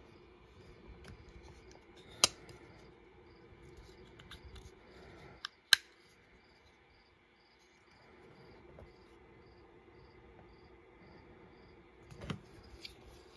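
Zero Tolerance 0393 folding knife handled in the hand: two sharp metallic clicks about two seconds and five and a half seconds in, and a few lighter clicks near the end, from the blade snapping into place in its lock.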